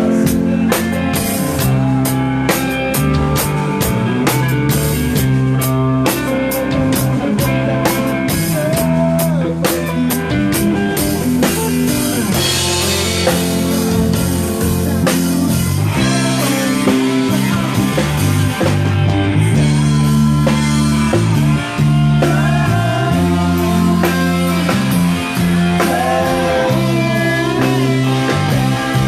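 Rock band music with electric guitar and drum kit over a steady bass line, playing without vocals.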